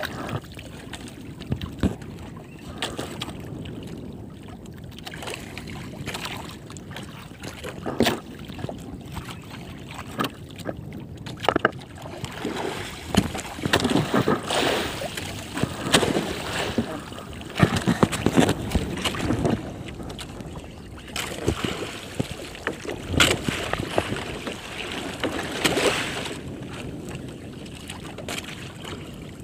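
Sea water sloshing and splashing against a small outrigger boat's hull and bamboo floats, with scattered knocks. The splashing gets louder for a long stretch in the middle.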